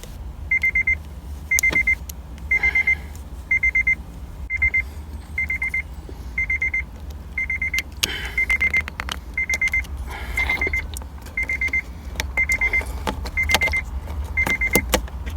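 Acura RSX's electronic warning chime beeping: a quick run of high beeps about once a second, over and over, with occasional light clicks of plastic interior parts being handled.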